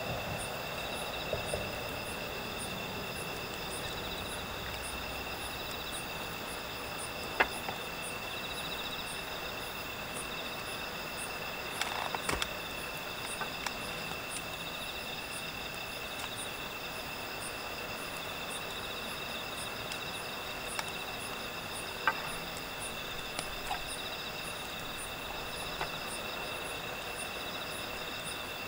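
Summer-night chorus of crickets and other insects: several steady high trills, with a higher chirp repeating a little over once a second. A few sharp pops cut through it, two of them louder.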